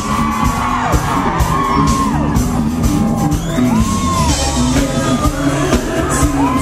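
Live pop-rock concert music, a male singer over a loud band, recorded from the audience.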